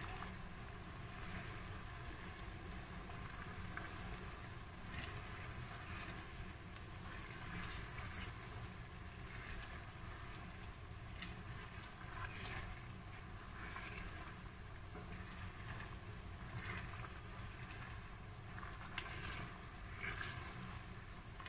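Sugar syrup boiling hard in a stainless steel pan on a gas stove: a steady low rumble with faint scattered bubbling pops.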